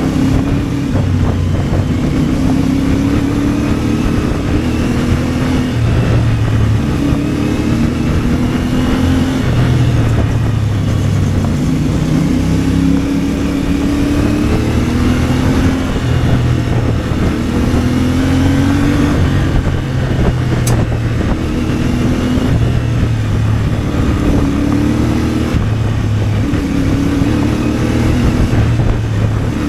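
CFMOTO 450MT's parallel-twin engine pulling under way, its pitch repeatedly climbing and dropping back as the throttle is worked and gears change. There is a single sharp tick about two-thirds of the way through.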